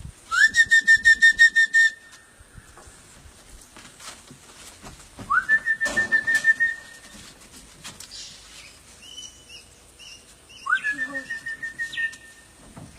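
Three whistled calls to bring in parrots, spaced a few seconds apart. Each is a quick rising slide into a high, held, fluttering note about a second and a half long.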